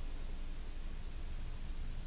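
Quiet, steady hiss of background noise with a faint low hum underneath; no distinct sound stands out.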